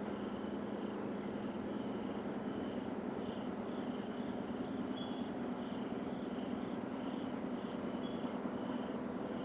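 A continuous low drone from an unidentified source in the sky, holding steady without pauses or pattern. A high chirp repeats about twice a second above it.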